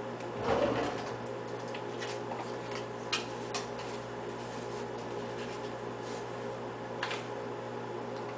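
A steady mechanical hum with a few fixed tones. There is a short, soft rustle about half a second in, and a few faint ticks around three and seven seconds in.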